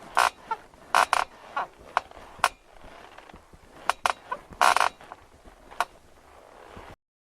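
Bed creaking: about ten short, irregular creaks over several seconds, then a sudden cut to silence near the end.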